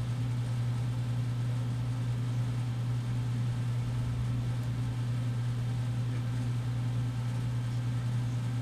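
Steady low machine hum with a faint hiss, unchanging throughout.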